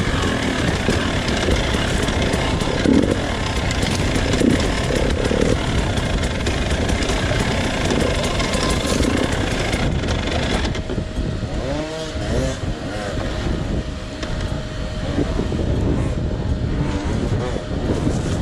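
Husqvarna TE300 two-stroke dirt bike engine running and revving while being ridden. About two-thirds of the way in, the dense rushing noise drops away, leaving the engine note rising and falling in a few revs.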